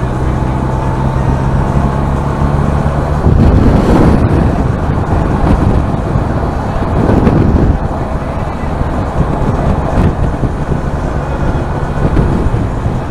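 Motorcycle engine running steadily under way with wind rushing over the rider's microphone, getting louder in gusts about three seconds in and again around seven seconds, as the bike gets up to about 70 mph.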